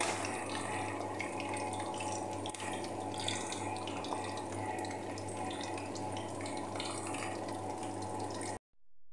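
Potato slices frying in hot oil in a pan: a steady sizzle with fine crackling over a low, even hum. It cuts off abruptly near the end.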